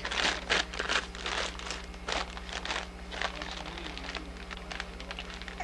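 Christmas wrapping paper crinkling and rustling as a baby handles a wrapped present: a run of irregular crackles, busiest in the first second or so, then sparser.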